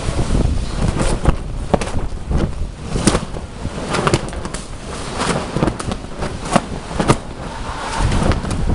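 Storm wind buffeting the microphone with a low rumble, broken by a dozen or so irregular sharp snaps and cracks.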